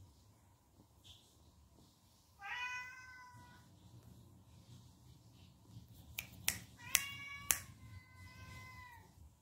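A cat meowing three times: one long meow about two and a half seconds in, then two more back to back near the end, the last dropping in pitch as it ends. Just before and during the second meow come four sharp clicks, the loudest sounds here.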